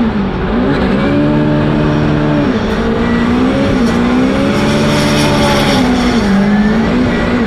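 Red Nissan Silvia S15 drift car's engine revving hard while drifting through a corner, its pitch rising and falling with the throttle and dropping sharply about a third of a second in and again around two and a half seconds.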